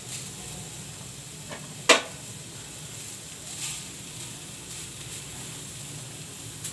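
Wooden spatula stirring and scraping shredded boiled chicken in a non-stick frying pan over a gas flame, with steady sizzling. A sharp knock of the spatula against the pan about two seconds in.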